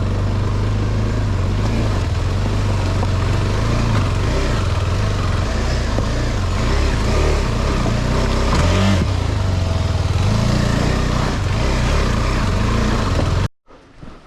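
KTM 390 Adventure's single-cylinder engine running under way on an off-road trail, its pitch shifting as the throttle changes, mixed with a heavy wind rush on the helmet-mounted microphone. It cuts off suddenly near the end.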